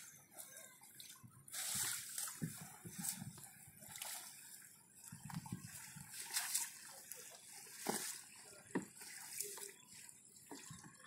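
Water sloshing and splashing inside a fine-mesh net trap as it is gathered in by hand, with small trapped fish churning the surface in irregular splashes.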